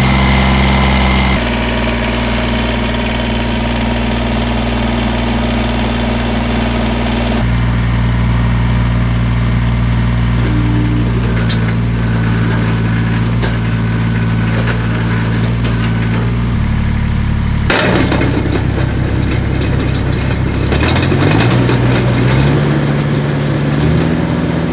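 Kubota BX compact tractor's three-cylinder diesel engine running, its speed shifting several times. About 18 s in there is a brief broad rush of noise, and near the end the engine revs up in steps.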